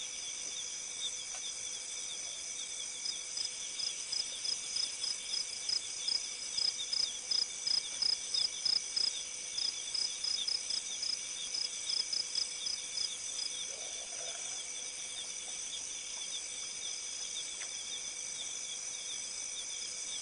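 Night chorus of insects, trilling steadily at several high pitches. Over it, one louder caller chirps in a quick, even run of about three chirps a second from a few seconds in until about two-thirds of the way through.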